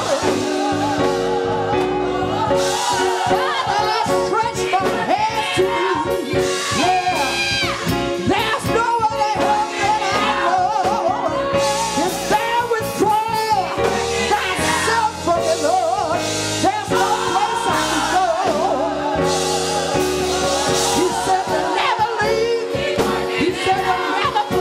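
Live gospel music: a woman singing lead into a handheld microphone over choir voices and instrumental backing with a steady beat.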